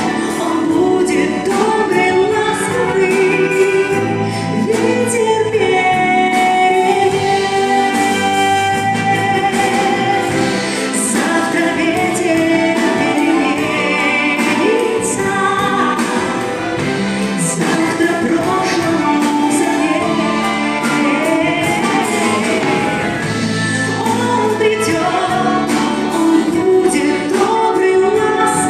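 Music: a song with singing voices and a choir-like backing.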